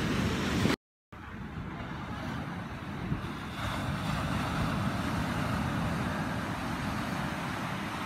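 Wind buffeting the microphone over the steady wash of surf, with a sudden brief dropout to silence about a second in.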